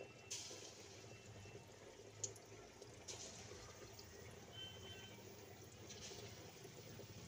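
Corn fritter batter dropped by hand into hot cooking oil, the oil sizzling and bubbling faintly. A louder burst of sizzle comes as batter goes in just after the start and again about six seconds in, with a few small pops between.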